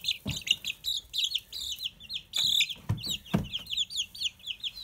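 Heritage-breed chicks peeping steadily, a quick run of short, high, falling chirps, about five or six a second. A few low thumps come through near the start and about three seconds in.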